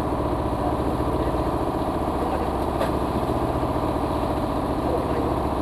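Engine on a bagang lift-net fishing boat running steadily at an even speed.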